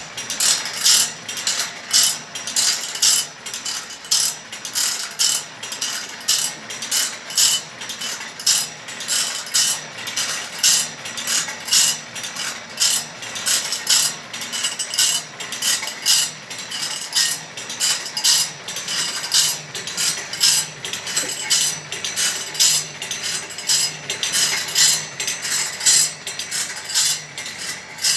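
Automatic band-saw blade sharpening machine running: a sharp metallic clack about once a second as the grinding wheel drops into each tooth and the feed pawl steps the blade on by one tooth, over a steady grinding hiss.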